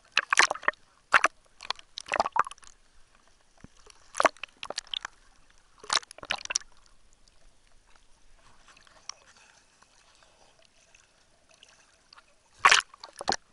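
Sea water splashing against a camera bobbing at the surface, in sharp loud splashes a second or two apart as small waves wash over it. It goes quieter for several seconds in the middle.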